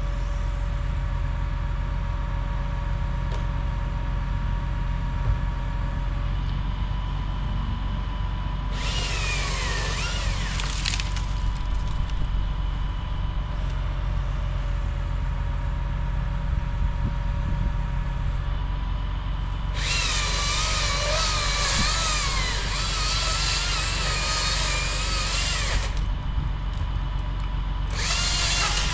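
Chainsaw cutting into a tree, throttling up in three bursts: a short one about nine seconds in, a long cut of about six seconds from about twenty seconds in, and a short one near the end, its pitch wavering under load. A steady low engine hum runs underneath throughout.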